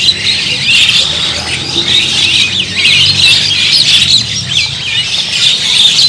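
A dense chorus of many caged small birds chirping and squawking at once, a steady mass of overlapping high calls with no pause.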